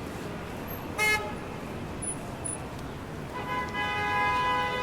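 Horn honks: one short blast about a second in, then a long, steady blast from about three seconds in.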